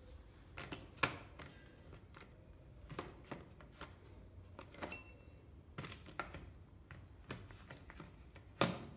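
Metal hand tools being put away in a plastic tool case: scattered clicks and knocks, the loudest about a second in and near the end.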